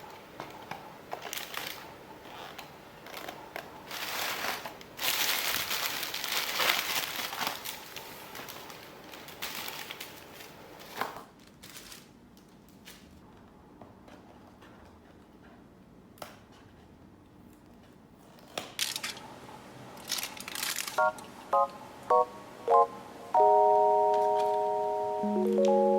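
Crinkling and rustling, like plastic wrapping being handled, for about ten seconds. After a quiet spell come four short electronic beeps and then held chiming tones.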